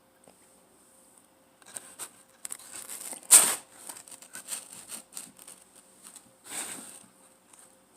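Eating and handling noises close to the microphone: irregular small clicks and rustling, with a loud short noisy burst a little after three seconds in and another softer one near the end.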